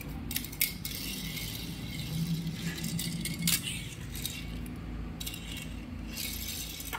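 Small toy army truck pushed by hand across a hard tiled floor: its wheels rolling with a light hiss, and several sharp clicks and knocks as the toy is set down and pushed.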